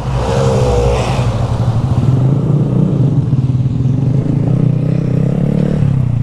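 Honda Grom minibike's small single-cylinder engine running steadily under way, its firing pulses rapid and even, with a brief wavering rise and fall in pitch about half a second in.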